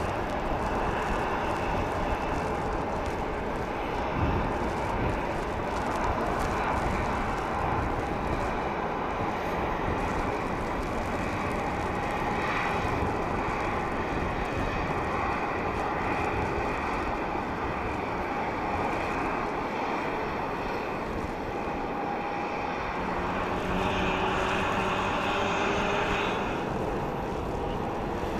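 Jet airliner engines running, a steady rumble and whine, with a whine rising in pitch a few seconds before the end.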